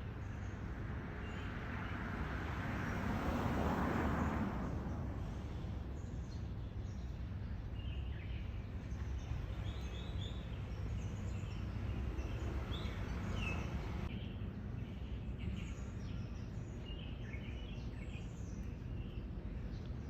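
Outdoor street ambience: a broad rushing swell, like a passing vehicle, builds and fades about four seconds in over a steady low rumble, then small birds chirp on and off through the rest.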